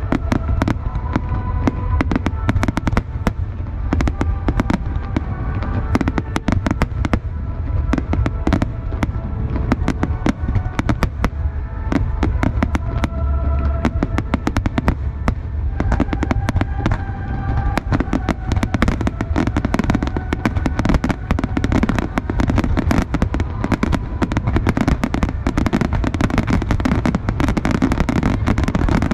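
A dense, unbroken barrage of aerial firework bursts and crackles, many reports a second, with music playing sustained notes underneath.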